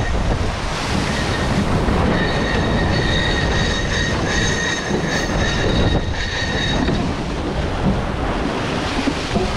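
Wind buffeting the microphone and water rushing past the hulls of an Extreme 40 racing catamaran under sail. From about two seconds in to about seven seconds in, a steady high-pitched whine with overtones sounds over the rush.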